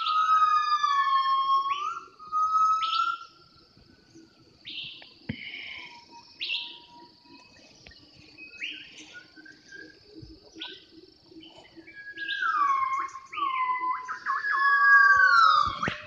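Gibbons singing: a run of pure, whistle-like whoops that glide up and down in pitch, loud at the start, dropping away in the middle where short chirps are heard, and building again near the end.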